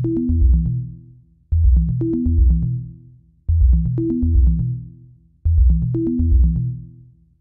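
Electronic background music: a deep synth bass phrase with a short higher synth line on top, starting again about every two seconds and fading out each time.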